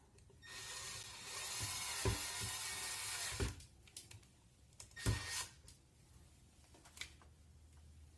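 Power drill-driver running for about three seconds, driving screws into a ceiling fan's plastic panel, then a few knocks and clicks.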